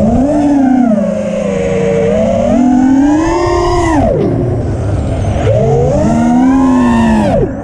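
Armattan Rooster FPV racing quadcopter's four Cobra CP2207 2450KV brushless motors and propellers whining, the pitch rising and falling as the throttle is punched and eased through freestyle moves. The pitch drops steeply about four seconds in, and the sound dips briefly near the end as the throttle is chopped.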